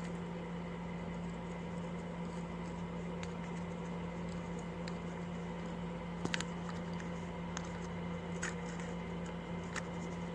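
A few faint, scattered clicks and light taps of small parts being handled while a dirt bike's carburetor components are fitted back in place. A steady low hum runs underneath.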